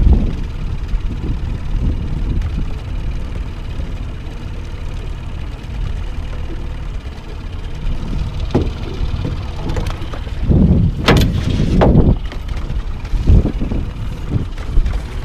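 Small outboard motor running steadily at low speed, under wind buffeting the microphone, with louder rushes of wind noise about ten to twelve seconds in.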